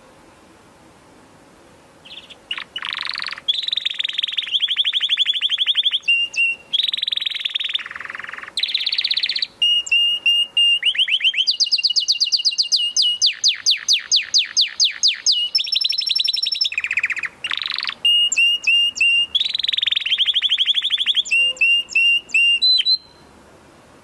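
Domestic canary singing a long, loud song of fast trills and rapidly repeated high notes in changing phrases. It starts about two seconds in and stops about a second before the end.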